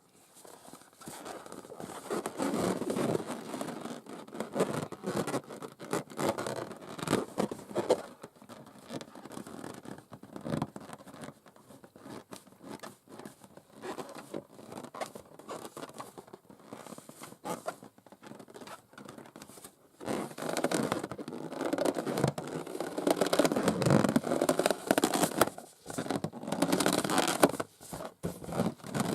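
Long acrylic nails scratching and rubbing over an inflated rubber balloon in quick, rasping strokes. The strokes get louder and busier about two-thirds of the way through.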